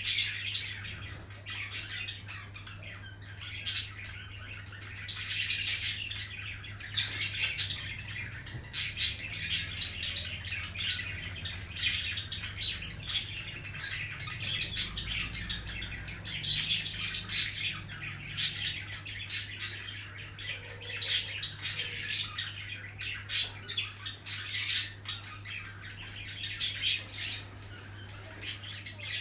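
Birds chirping and squawking in short, irregular calls throughout, over a steady low hum.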